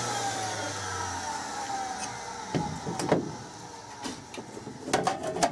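Grinding machine's motor spinning down after being switched off, its hum falling in pitch and fading out within the first second or two. Then come a few sharp clicks and knocks as the sanding wheel is handled at the spindle, ahead of fitting a wire brush.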